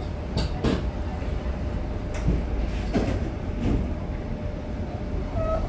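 Inside a Frankfurt R-type tram: a steady low rumble with a handful of scattered knocks and clicks, and a brief high tone near the end.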